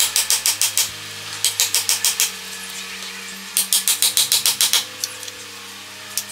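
Hammer striking a steel chisel cutting into a dry driftwood root, in three quick runs of taps at about eight a second, with pauses between them. A steady mechanical hum runs underneath.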